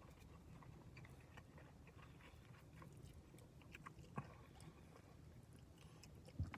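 Faint chewing and small eating clicks, with a couple of sharper clicks about four seconds in and near the end, over a low steady hum.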